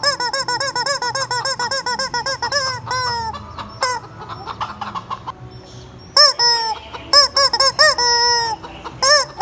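Rubber squeeze-toy chicken squeaked over and over: a rapid run of short, identical squawks, a lull about three seconds in, then louder squawks, a few of them drawn out longer.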